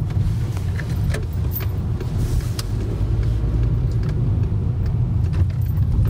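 Steady low rumble of a car driving slowly along a road, heard from inside the cabin, with scattered light clicks over it.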